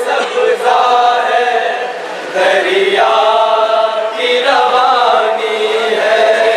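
A man's voice chanting an Urdu noha, a mourning lament, in long, wavering held notes, with a short break about two seconds in.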